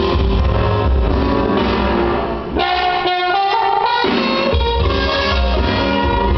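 Dance music with a strong bass and drum beat. About two and a half seconds in, the bass and beat drop out for roughly two seconds, leaving only higher melodic tones, then the full beat comes back.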